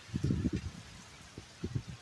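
Wind gusts buffeting the microphone in the storm: two bursts of low buffeting, one at the start and one just past the middle.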